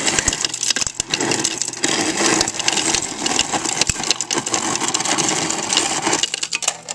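Refrigerator door ice dispenser running: the motor grinds and crushed ice clatters into a glass in a rapid rattle, stopping suddenly near the end.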